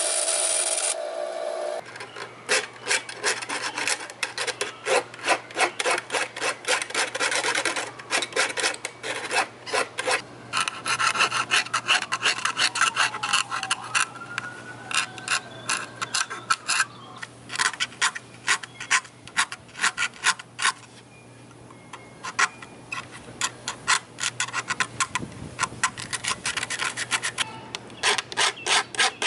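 A band saw runs for the first couple of seconds and stops. Then hand filing with needle files: quick back-and-forth strokes, about three a second, with a few short pauses.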